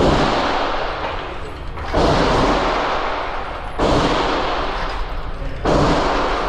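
Four gunshots fired at a steady pace about two seconds apart, each followed by a long fading echo.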